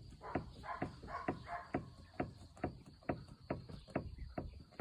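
Repeated clunking knocks from a car's suspension, about two a second: the sign of a shock absorber whose mounting nut has worked loose.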